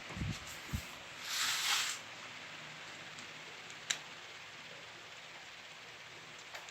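Handling noises: a few low bumps, a rustle lasting under a second, then a single sharp click about four seconds in, over a steady hiss.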